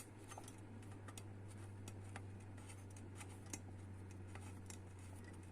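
Faint, scattered light clicks and taps of trumpet valve parts being handled, over a steady low hum.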